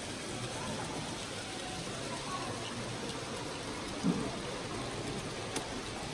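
Model trains running on the layout's track: a steady rolling hiss, with a low thump about four seconds in and a sharp click near the end.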